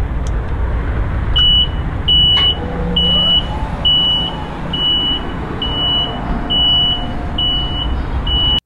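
Scissor lift's motion alarm beeping, a high single tone repeating a little more than once a second, over a steady low rumble of the running lift. The sound cuts off suddenly near the end.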